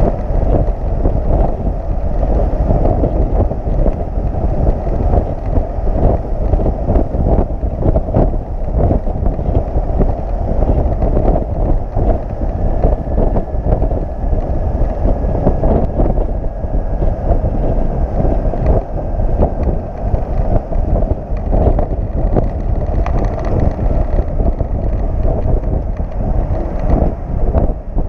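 Wind buffeting the microphone over a steady rumble of road and drivetrain noise from a flatbed tow truck travelling at speed, heard from the motorcycle strapped on its bed.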